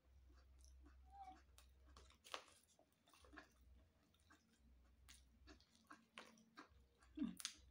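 Faint chewing and mouth clicks of a person eating a meal of rice by hand, with a few sharper clicks, the loudest near the end.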